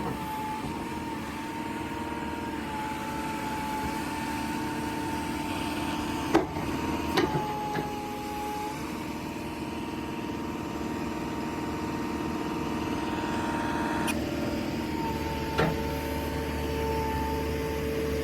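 2014 JCB 3C backhoe's diesel engine running steadily with a high whine over it, broken by a few sharp knocks; the low engine rumble grows stronger about fifteen seconds in.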